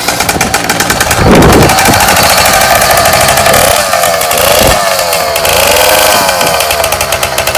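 66cc two-stroke bicycle engine kit running fast and rattly, its pitch rising and falling several times in the second half as the throttle is worked.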